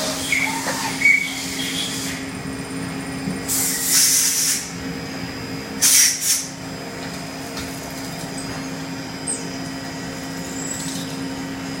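Fryer MC 30 vertical machining center running with a steady low hum, and two short bursts of air hiss, the first about four seconds in and the second, briefer, about two seconds later.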